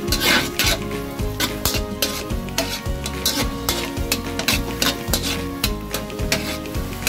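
Butter sizzling as it melts in a hot metal wok, while a slotted metal spatula scrapes and clinks against the wok's sides in quick, irregular strokes.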